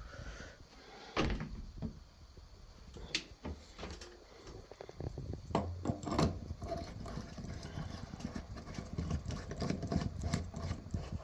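Light bulbs being handled and screwed into fixtures: scattered sharp clicks and taps, with soft rustling and scraping in between.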